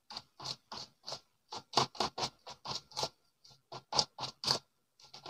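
Metal spoon scraping round a pink plastic bowl while stirring a damp carp bait dough of crushed wafer, egg and coconut milk: quick repeated scrapes, about three to four a second.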